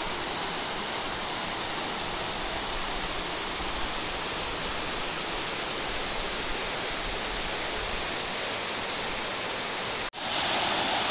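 Steady rush of a waterfall, an even unbroken noise of falling water. It breaks off for an instant about ten seconds in and comes back a little louder.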